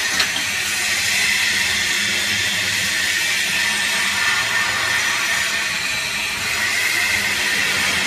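Vertical hydraulic baler's electric motor and hydraulic pump running steadily: a low mains-frequency hum under a hissing whine. A single short metallic knock just after the start as the door's locking handle is worked.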